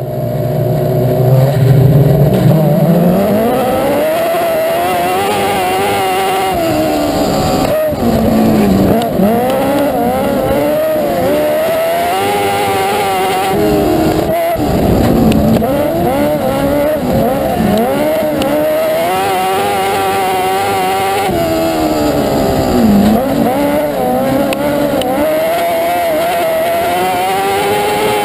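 Dwarf race car's motorcycle engine at full throttle on a dirt oval, heard from on board: it accelerates hard with a steeply rising pitch over the first few seconds, then repeatedly drops as the driver lifts for the turns and climbs again down the straights.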